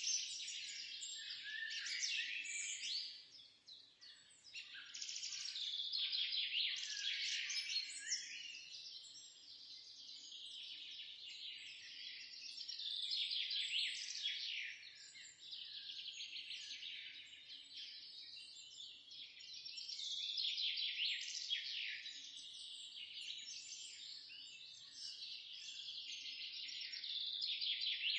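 Songbirds singing and chirping, many quick overlapping calls and warbles with hardly a break, dipping briefly about three seconds in.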